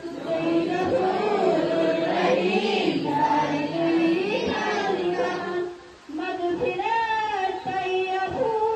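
A group of school students singing a Kashmiri prayer together, with a short break between lines about six seconds in.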